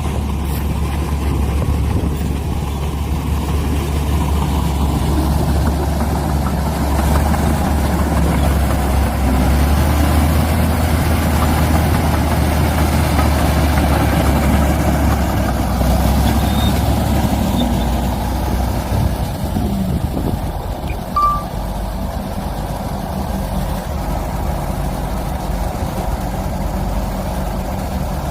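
Heavy diesel earthmoving machinery, a bulldozer and a dump truck, running steadily under load, a bit louder through the middle and easing off later.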